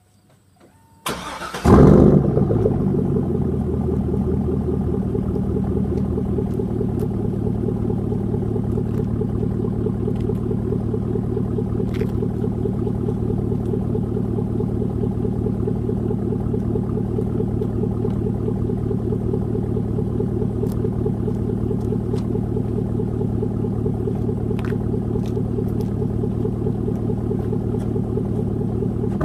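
A Chevrolet Silverado's 4.8-litre Vortec V8 starts about a second and a half in with a short crank and a loud flare, then settles into a steady idle. Its muffler has been replaced by a straight length of pipe.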